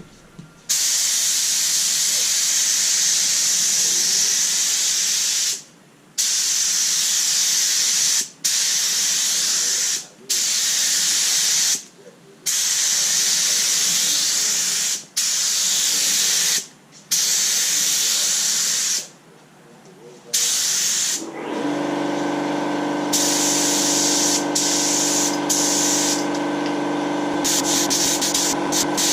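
Compressed-air paint spray gun hissing in a series of trigger pulls, about seven passes of a couple of seconds each with short breaks between, as base coat is sprayed. About two-thirds of the way through, a steady hum made of several tones joins under the hiss and runs on.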